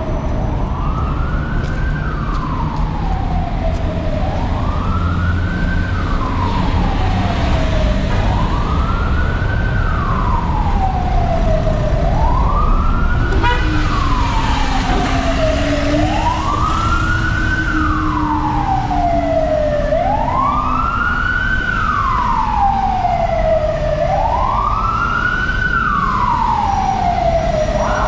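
Emergency vehicle siren wailing: each cycle rises quickly and falls slowly, about every four seconds, repeating steadily over low street traffic. Right at the end it switches to a much faster warble.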